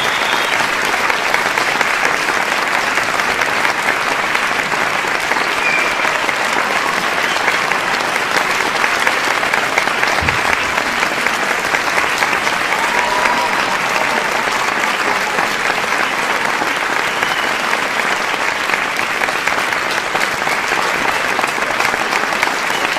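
Large audience clapping steadily and densely throughout, with a few faint shouts from the crowd over it.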